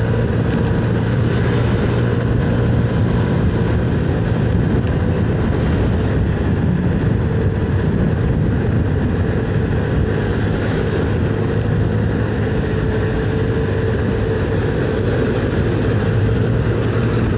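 Small motor scooter running at a steady cruising speed, its engine hum even throughout, mixed with road and wind noise.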